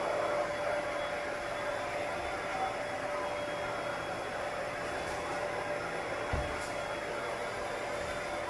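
Kenmore Powermate compact canister vacuum cleaner running steadily, a continuous whirring noise with one held tone, with a brief low thump about six seconds in.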